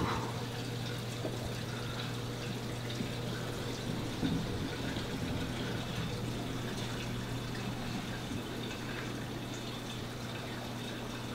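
Steady room background of a low hum with faint trickling water. A sharp click at the start and a soft knock about four seconds in come from snake bags and clear plastic tubs being handled.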